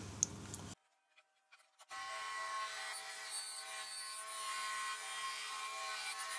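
Electric benchtop scroll saw running with a steady whine, its blade cutting a wooden form to trim a little off the top; it starts abruptly about two seconds in.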